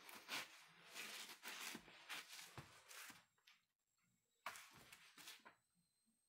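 Faint scuffing and brushing of sneakers and hands on a bare concrete floor during breakdance floor moves, in a run of scrapes for about three seconds, then another short run about four and a half seconds in.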